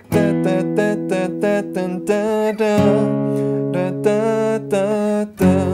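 Steel-string acoustic guitar played with a pick: two-note power chords struck in a steady rhythm, the low note changing a few times as the player moves through a four-chord progression.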